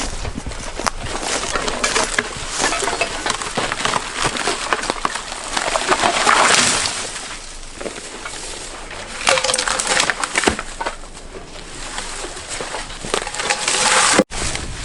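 Crunching and rustling of dry twigs, needles and branches on a forest trail, with irregular snaps and clicks that swell twice, then cut off abruptly near the end.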